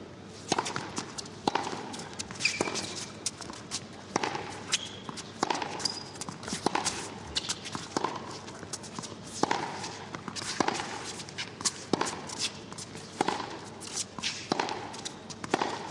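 Tennis rally: racket strikes on the ball, roughly one every second or so, going back and forth, with a few short high squeaks among them.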